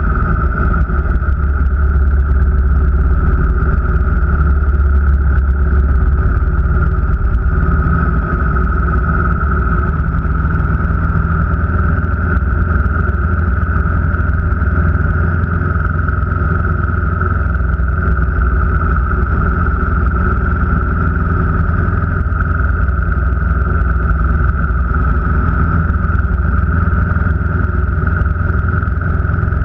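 A car driving at a steady speed: a constant engine drone and road rumble with a steady higher hum above it.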